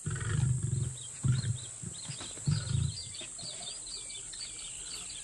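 Lions giving a few low grunts in the first three seconds, over birds chirping and a steady high insect drone.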